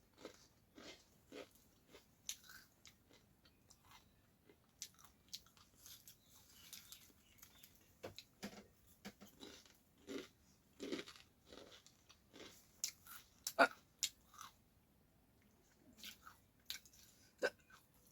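Someone chewing a crunchy, very spicy namkeen snack mix: faint, irregular crunches and bites.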